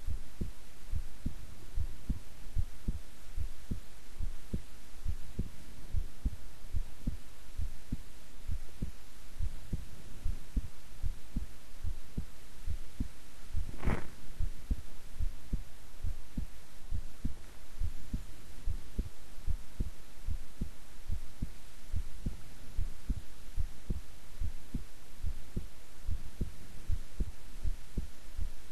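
A woman's heartbeat at rest: a steady, even run of soft low thumps. About halfway through there is one sharper click.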